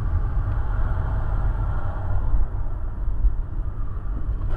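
Steady low rumble of a car being driven on a city street, heard from inside the cabin through a dashcam microphone: engine and tyre noise.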